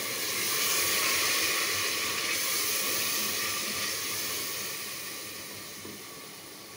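Onion, tomato and spice masala sizzling hard in hot oil in a pressure cooker pot after a splash of water, the water flashing to steam. The sizzle swells about a second in and then slowly dies down as the water cooks off.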